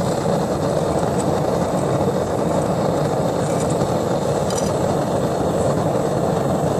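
Gas forge burner firing into a cylindrical fire chamber, a steady, even rushing noise of the flame.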